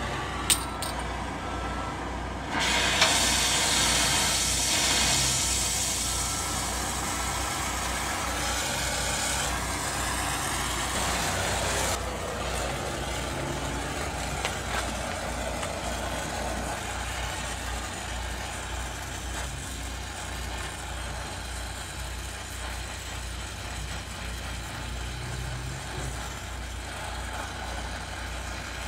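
Electric arc welding on a steel frame joint: a steady sizzling hiss that gets louder about two and a half seconds in and stops suddenly about twelve seconds in.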